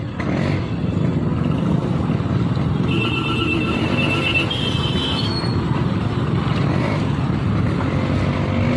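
Busy street traffic heard from a moving vehicle: motorcycle and rickshaw engines running all around, with a high beep sounding for about two seconds midway.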